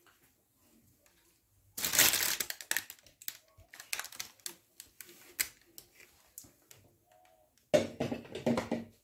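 Crinkling and clattering from handling things in a kitchen, in two loud bursts about two seconds in and near the end, with scattered clicks and rustles between them.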